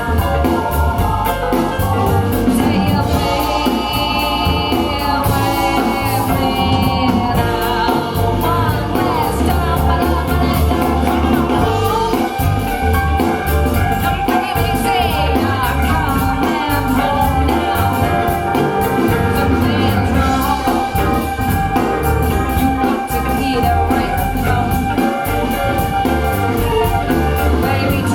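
A song with singing and a strong bass line, played back through a pair of PSB Alpha P5 bookshelf speakers as a sound demo.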